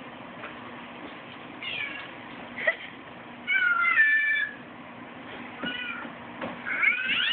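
Recorded cat meows played through a smartphone's speaker: about five meows in a row, the longest and loudest about four seconds in, and another building near the end.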